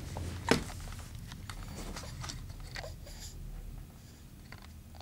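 Handling noise from the camcorder as it is moved: one sharp knock about half a second in, then faint scattered clicks over a low steady hum.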